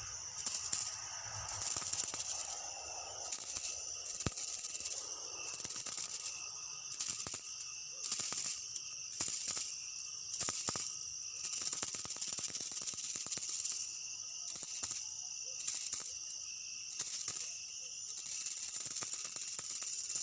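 Insects trilling in a steady high chorus that keeps breaking off and starting again about once a second.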